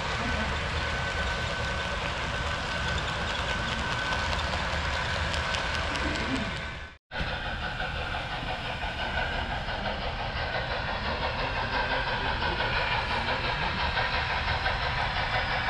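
HO scale model freight cars rolling past on the track, the wheels ticking over rail joints, with a thin steady whine. After a brief gap the rolling rumble of an approaching model train carries on, growing a little louder near the end.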